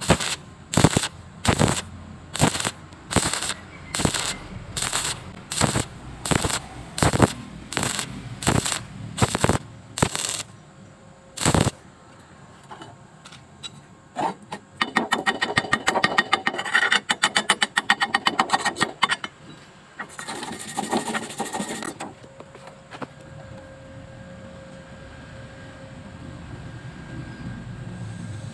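Hammer striking metal about fourteen times at an even, steady pace. After a pause comes a fast rattle of light taps and a brief scraping.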